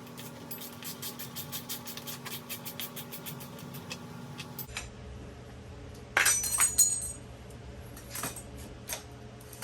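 A ratchet wrench clicking rapidly and evenly, about seven clicks a second for about four seconds, as a 10 mm brake line bolt on a motorcycle is undone. This is followed about six seconds in by a loud metallic clink and rattle of small metal parts, then a couple of light clicks.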